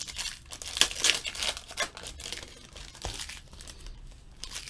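Stack of football trading cards being handled and sorted by hand: irregular papery rustling and card-flicking, busiest about a second in.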